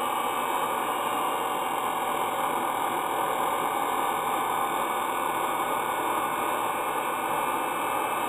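Grinding wheel running with a steel cold chisel pressed against it for a spark test: a steady, even grinding hiss.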